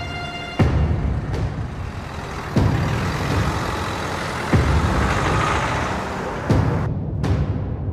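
A Renault saloon car driving off and passing by, its engine and tyre noise swelling in the middle and fading near the end. Under it, a deep drum hit from the score booms about every two seconds and is the loudest thing heard.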